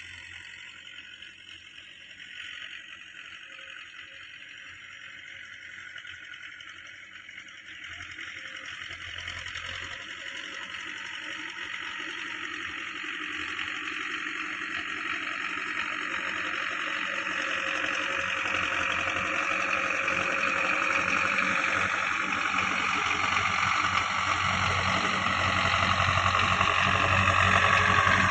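Belarus tractor's diesel engine running steadily as it pulls a laser land leveller through loose dry soil, growing steadily louder as it approaches.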